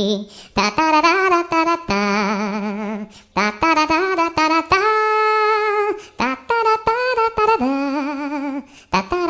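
Ringtone music: a wordless melody in one voice-like line, its notes held with strong vibrato, in phrases about three seconds long with brief breaks between them.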